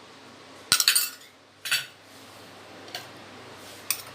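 A spoon clinking against a mixer-grinder jar as fennel seeds are tipped in: a quick run of clinks about a second in, another just after, and lighter ticks toward the end.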